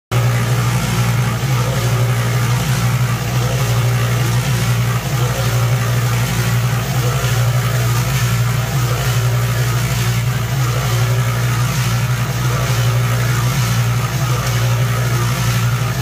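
Yardmax electric concrete mixer running steadily, its motor humming while wet concrete and gravel churn and slop in the turning drum.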